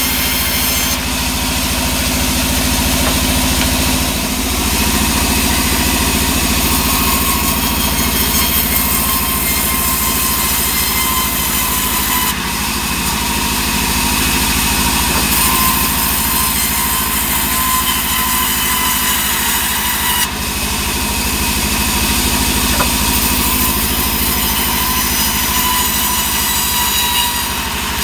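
A vertical band saw running steadily and ripping sengon wood planks lengthwise, the blade's hiss shifting a few times as boards are fed through, over the constant drone of the machine's drive.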